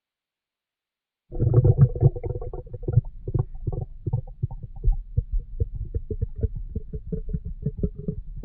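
Stomach growling: a low rumble with a held gurgling tone cuts in suddenly about a second in, then breaks into a long run of short, irregular bubbly gurgles and pops.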